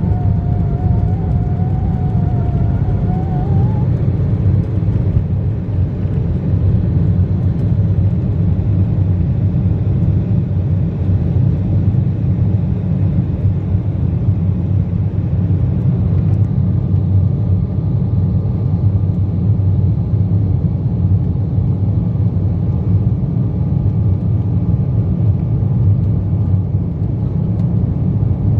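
Cabin noise of an Embraer 190 taking off, heard from a window seat over the wing: its GE CF34-10E turbofans at take-off thrust give a loud, steady rumble through the end of the take-off roll, lift-off and the initial climb. A wavering whine fades out in the first few seconds, and about halfway through the hiss eases and a faint steady tone comes in.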